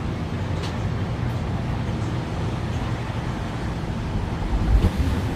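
Steady low rumble of gusty wind buffeting the microphone, with a louder gust near the end.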